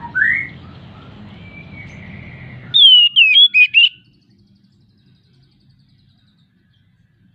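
Oriental magpie-robin singing, a male in breeding condition: a rising whistled note at the start, a faint held note, then a loud run of quick sweeping whistles about three seconds in, stopping about four seconds in.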